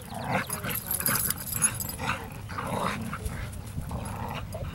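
Dogs growling in play while tugging on a toy, in short bursts repeating about every half second.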